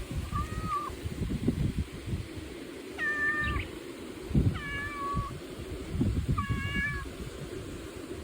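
A cat meowing four times, short, fairly level calls a second or two apart, over a low rustling noise.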